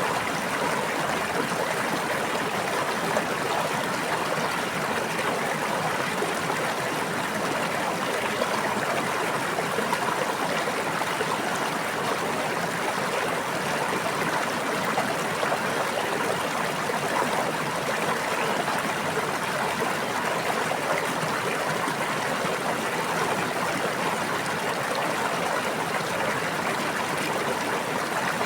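Water flowing in a stream, a steady babbling rush with no change in level.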